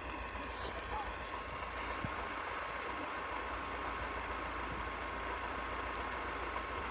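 Meltwater running steadily through a small channel in the snow, a continuous trickling rush.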